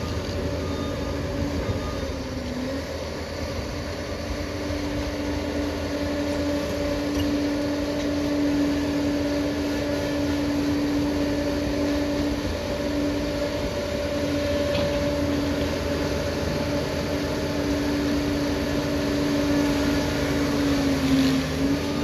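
Steady mechanical drone with a constant hum running through it; the hum dips briefly in pitch twice.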